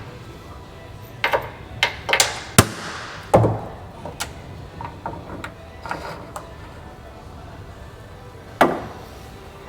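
Scattered sharp knocks and clanks from hand-tool work on a Humvee's body: about six strikes in the first four seconds, a few faint taps, then one more loud knock near the end.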